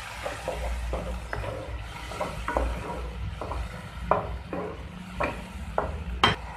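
A spatula stirring and scraping thick onion-tomato masala paste frying in a non-stick pan, with a light sizzle: the masala being fried down. Irregular scrapes and taps, the sharpest near the end, over a steady low hum.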